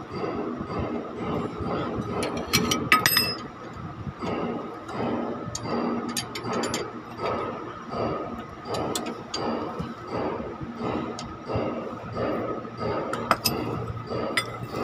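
Socket wrench working the end bolt of a truck's sway-bar link rod: a steady rhythm of wrench strokes, about one and a half a second, with sharp metal clinks of tools. The clinks are loudest about two to three seconds in and again near the end.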